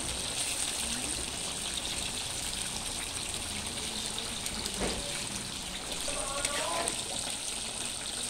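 Coconut milk simmering and bubbling in a wide aluminium pan, with a steady hiss. A handful of chopped ingredients drops into the pan about halfway through, and a spoon stirs near the end.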